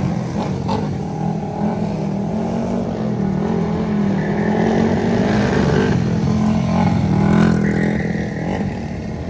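A car engine running and revving, its pitch rising and falling in the middle.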